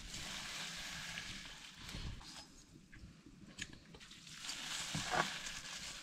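Stinging nettle leaves being pressed down and stirred with a metal slotted ladle in a pot of steaming hot water: a steady hiss with a few clicks. A short rising squeak-like sound comes about five seconds in.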